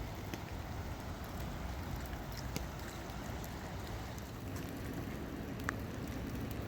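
Steady rush and patter of running water, with scattered light droplet ticks.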